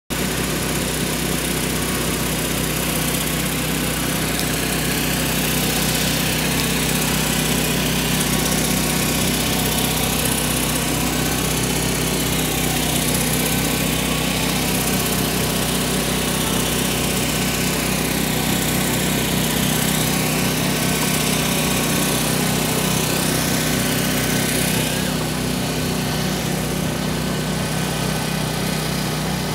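An engine idling steadily, an even hum that holds the same pitch and level throughout.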